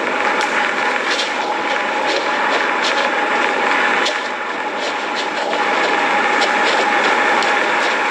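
Steady, loud, jet-like rushing roar with scattered faint crackles, the strange sound from underground that is likened to a lot of steam or other gases being pushed to the surface.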